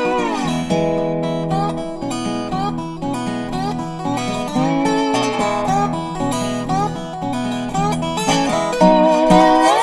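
Background music: acoustic guitar playing, with notes that slide in pitch.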